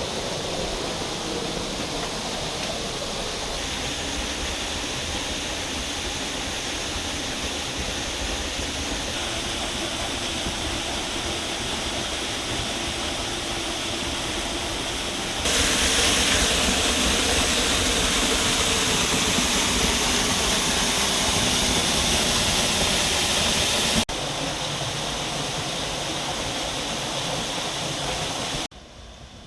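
Steady rushing of the Sgwd Gladys waterfall pouring down into its pool. It gets louder about halfway through and drops away suddenly near the end.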